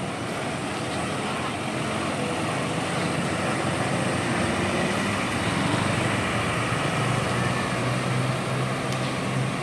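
Diesel tour-bus engine running, a steady low drone that grows gradually louder and is strongest a little past the middle.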